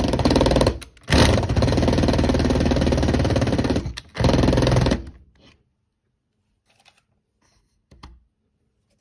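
Cordless drill motor running in three bursts, a short one, a long one of about three seconds, then a short one, as the drill turns a bit in a screw in a pine board to work the screw out. A small click follows near the end.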